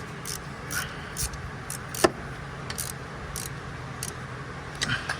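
Metal clicks and clinks of a wrench at work tightening bolts on the engine. The clicks are irregular, and one sharp, loud click comes about two seconds in.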